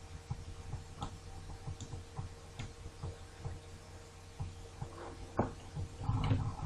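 Faint irregular ticks and clicks of a stylus tapping on a pen tablet while writing, over a low steady electrical hum, with a brief louder sound near the end.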